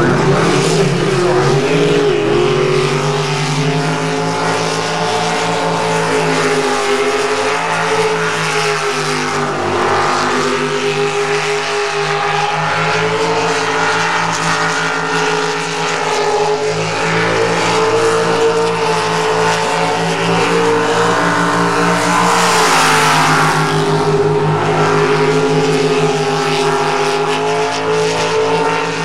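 Jet sprint boat engine running hard at high revs through the course: a loud, sustained engine note that wavers a little in pitch, with a brief rise and fall in the first couple of seconds and a brighter, noisier swell about two-thirds through.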